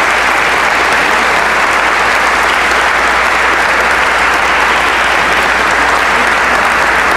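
Audience applauding, a dense, even clapping that holds steady without letting up.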